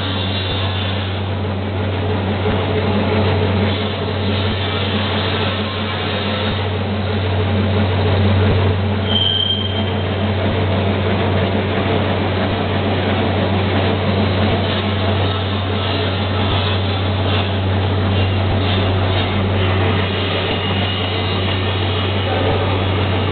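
Ring-type profile wrapping machine running: a steady low machine hum with mechanical noise as the ring rotates around the profile and wraps it. A short high squeal about nine seconds in.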